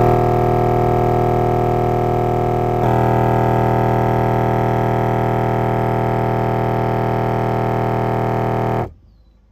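A 10-inch Memphis subwoofer driven hard in free air with a 40 Hz test tone, a steady drone thick with overtones. It gets louder about three seconds in and cuts off suddenly near the end.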